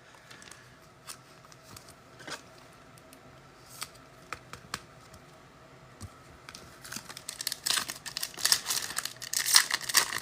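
Trading-card pack wrapper being torn open and crinkled by hand. A few faint taps at first, then from about six and a half seconds in the crinkling and tearing come thick and fast and grow louder.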